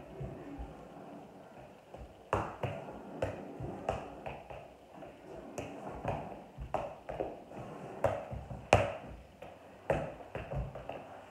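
Soccer ball being juggled: a dull thud at each touch, coming in irregular runs about half a second apart with short pauses, the loudest near the end.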